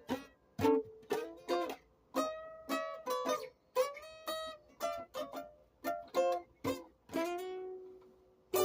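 Music: a plucked string instrument playing a slow run of single notes, the last one left to ring and fade near the end.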